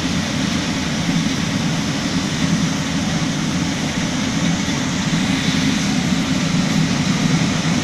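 Band-knife foam splitting machine with a vacuum conveyor belt running steadily: a constant hum with an even rushing noise over it.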